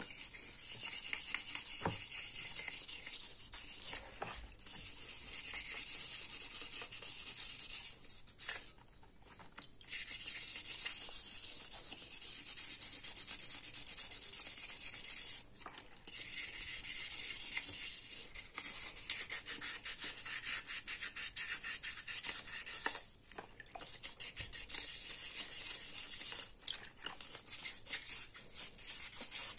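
Rusty steel head of an old sugar breaker (chipping hammer) being scrubbed by hand with a wet blue abrasive pad: quick scratchy rubbing strokes, stopping for about two seconds near nine seconds in and briefly twice more.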